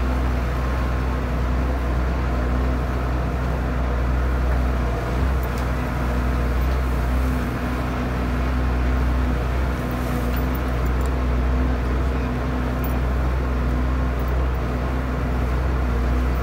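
Tractor-driven Cloverdale 500 T vertical feed mixer running steadily, a constant low engine and auger hum, as it finishes chopping the core of a wet baleage bale of alfalfa-grass.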